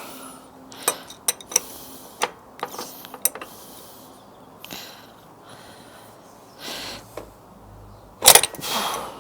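Scattered metallic clinks and knocks of a bicycle and hand tools being handled, with a louder clatter near the end.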